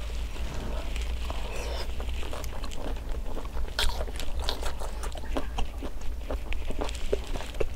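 Close-miked chewing and crunching of hot-pot food, with many small sharp clicks and crackles, over a steady low hum.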